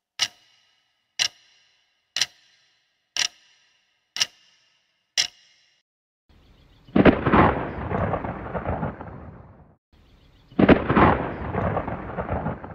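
Six sharp ticks, one a second like a clock, then two rolls of thunder, each swelling to a loud peak and rumbling away over about three seconds.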